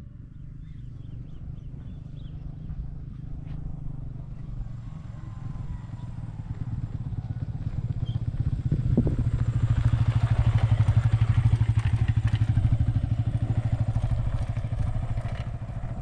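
Motorcycle engine running with an even pulsing hum. It grows louder over several seconds to its loudest a little past the middle, then eases off slightly.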